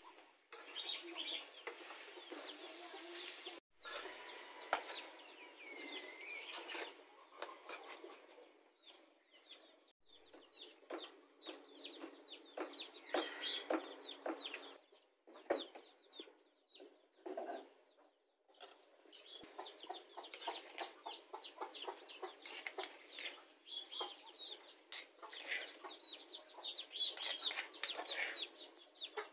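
Repeated knocks of a wooden pestle pounding in a stone mortar, several a second, with chickens clucking.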